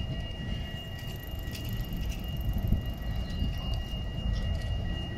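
Tram running nearby: a low rumble with a steady, high two-note whine over it.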